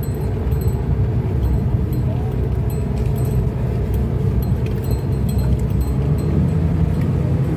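Suzuki Every DA64W kei van heard from inside its cabin while driving slowly: a steady low engine and road rumble, the engine note rising a little about six seconds in as it picks up speed.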